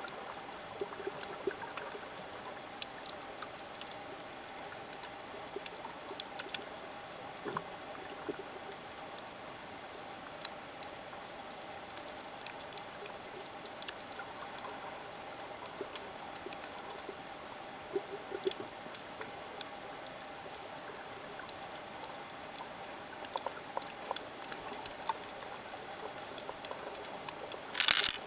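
Underwater sound picked up by a submerged camera: a steady hiss with a faint hum, sprinkled with scattered crackling clicks. A brief loud rush of noise comes near the end.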